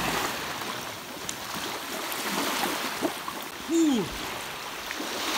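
Shallow sea water splashing and lapping as a man wades and pushes at a flat rock. About two-thirds of the way through comes one short shout that falls steeply in pitch.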